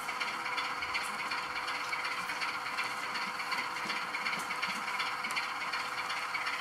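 Model freight train running slowly on the layout: a steady rattle of small wagon wheels on the rails and faint clicks, over the steady hum of a DCC sound-fitted diesel locomotive.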